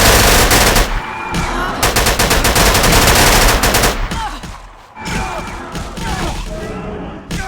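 Rapid automatic gunfire in two long bursts: the first stops about a second in, the second runs from about two to four seconds in. Quieter sliding pitched sounds follow.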